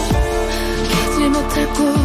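Pop music: a wavering melody line over steady backing, with deep kick drum hits that drop in pitch, one at the start and one at the end.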